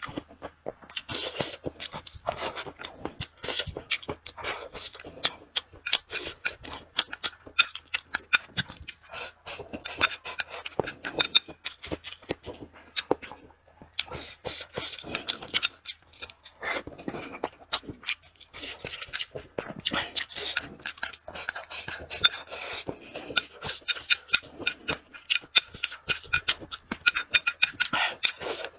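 Close-miked eating of chicken feet and rice: a steady run of wet chewing, lip smacking and slurping, with a brief pause about halfway through.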